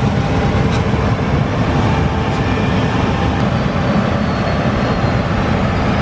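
John Deere combine cutting wheat with a MacDon FlexDraper header close by: a steady, loud rumble of the engine and threshing machinery.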